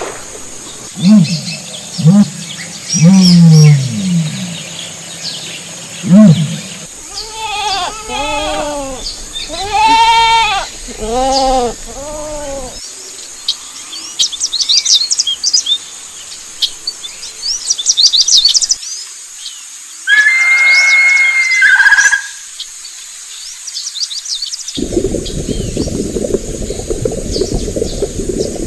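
A run of separate farm and nature animal recordings. Low repeated calls come first, then bleating of about six arched calls, then small birds chirping, a brief held call, and a steady hiss near the end.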